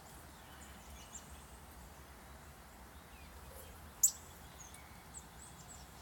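Small songbirds chirping now and then, faint and high, with one sharper, louder call about four seconds in, over a steady low outdoor rumble.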